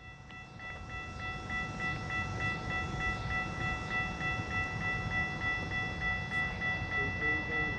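A railroad warning bell rings rapidly and steadily, about four strokes a second, over the low rumble of an approaching Amtrak train that grows louder.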